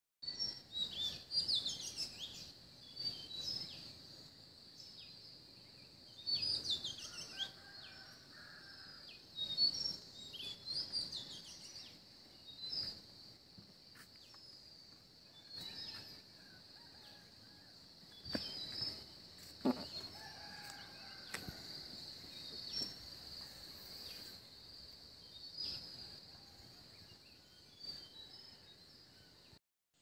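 Birds calling outdoors: clusters of quick chirps and whistled notes every couple of seconds, over a steady high-pitched drone.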